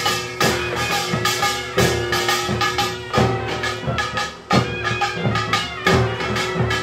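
Korean samulnori percussion playing: buk barrel drums struck in a steady, driving rhythm, with a kkwaenggwari small gong clanging and ringing over them.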